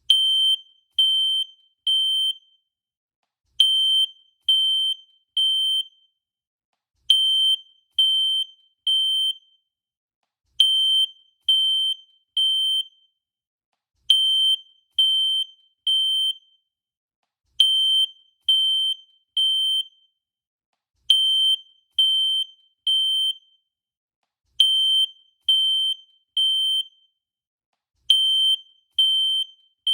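Fire alarm sounding the temporal-three evacuation pattern: three high-pitched beeps, a pause, then the same again, about every three and a half seconds.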